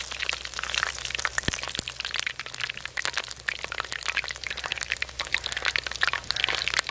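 Samosas deep-frying in moderately hot oil in an iron karahi, the oil bubbling and crackling steadily with dense small pops.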